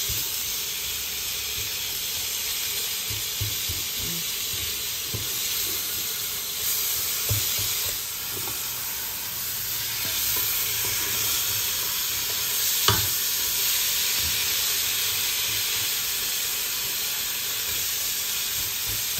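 Minced beef sizzling as it fries in a non-stick pot, with a spatula scraping and stirring through it in small scattered scrapes. One sharp knock stands out about two-thirds of the way through.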